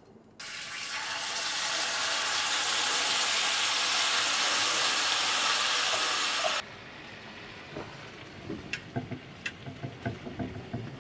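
Canned baked beans poured into a hot nonstick frying pan, sizzling loudly for about six seconds, then dropping suddenly to a much quieter sizzle with a couple of light clicks.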